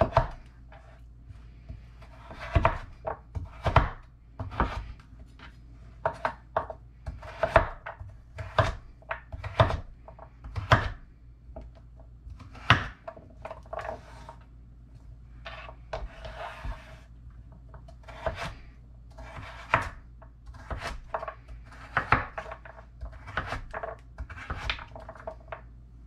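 Chef's knife dicing a peeled turnip into small cubes on a wooden cutting board: a long run of irregular knocks of the blade through the firm root onto the board, about one or two a second.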